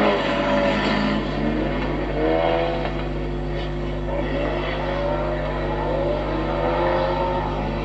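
Several bilcross race car engines revving hard, their notes rising and falling as the cars race round the track. A steady low hum runs underneath.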